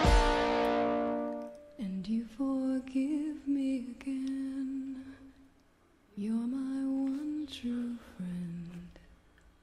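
A full band with guitar fades away, leaving a single voice singing softly and unaccompanied in slow held phrases, with a brief silent pause about five seconds in.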